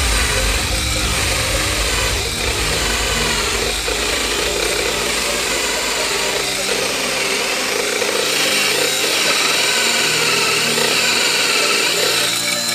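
Ryobi cordless drill running steadily under load, driving a hole saw down through a wooden board, the teeth grinding through the wood.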